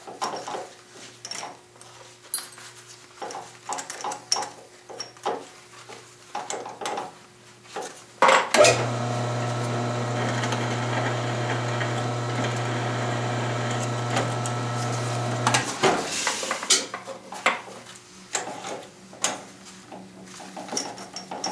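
Metal clinks and rattles of drill bits and the keyed chuck being handled at a drill press. About eight and a half seconds in, the drill press motor starts with a steady hum and cuts into 3/8-inch 4140 steel plate for about seven seconds, step-drilling a bolt hole, then stops abruptly, followed by more clinking of bits and chuck.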